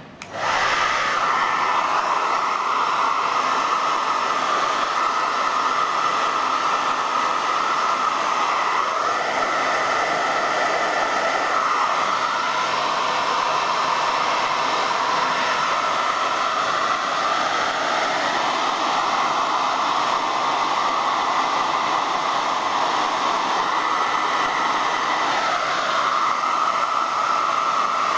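Electric hair dryer switched on about half a second in and running steadily, its pitch bending slightly a few times.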